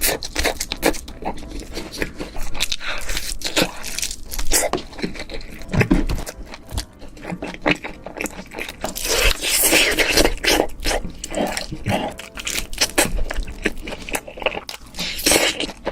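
Close-miked eating: crunchy bites and wet chewing with many small irregular clicks and smacks, and a longer hissing stretch about nine seconds in.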